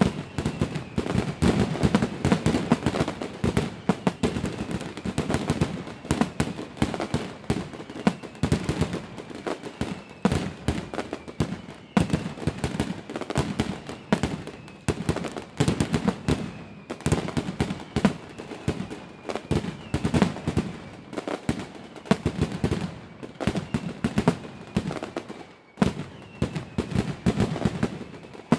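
Aerial fireworks going off in quick, dense succession, a steady run of bangs and crackles with no let-up.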